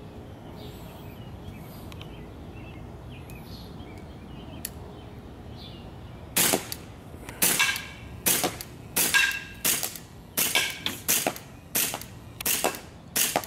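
Elite Force 1911 TAC gas-blowback airsoft pistol firing about a dozen separate, sharp shots, roughly one to two a second, starting about six seconds in; some shots carry a brief metallic ring.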